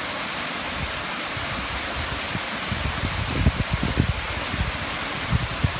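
Steady rushing of a mountain stream cascading through a rocky gorge, with low, irregular thumps over the second half, the loudest about three and a half and four seconds in.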